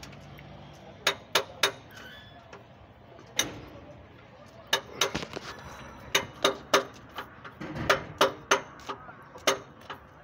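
Sharp metal clicks and clinks as the parts of a truck wheel hub are turned and handled by hand. The clicks are irregular, often coming in quick runs of two or three.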